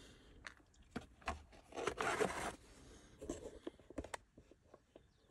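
Plastic O-ring assortment case being handled and shifted on a workbench: scattered clicks and short scrapes, with a longer scrape about two seconds in and a sharp click near four seconds.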